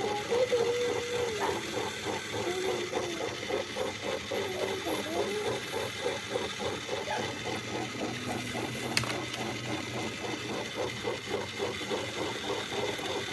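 Battery-powered Magic Egg Decorator spinner running: its small motor turns the egg with a steady, even rattle, about four pulses a second, while a marker is held against the egg.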